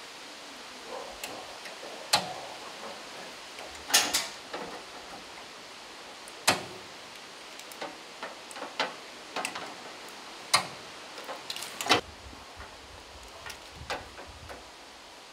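A metal flat bar knocking and clinking against a car's steel body panels as it is shifted and held in place: separate sharp knocks, about one every second or two, some in quick pairs.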